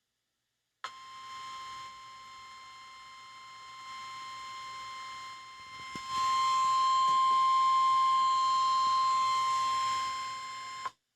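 NOAA Weather Radio warning alarm tone (1050 Hz): one steady high tone lasting about ten seconds, cutting in and out abruptly and getting louder about six seconds in. It is the alert signal sent ahead of a warning message, here a severe thunderstorm warning.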